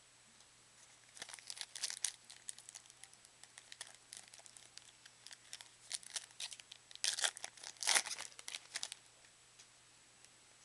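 A 2009 Leaf Certified Football card pack's wrapper being torn open and crinkled by hand. It makes a run of crackles, loudest about seven and eight seconds in, then stops.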